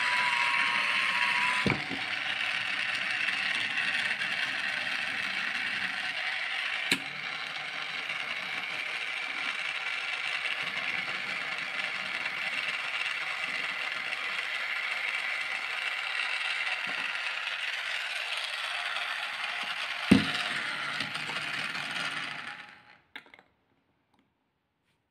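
One Touch automatic jar opener's small electric motor running steadily as it grips the jar and twists the lid loose, with a few sharp clicks, the loudest about twenty seconds in. The motor stops a couple of seconds before the end.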